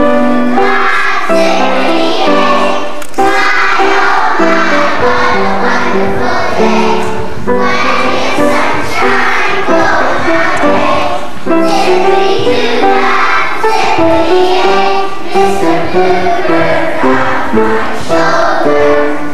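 A group of young children singing a song together, a melody of held notes that runs without a break.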